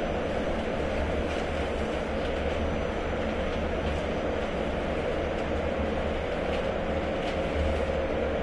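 Prague Metro 81-71M train running, heard from on board: a steady rumble with a steady whine and a few faint ticks.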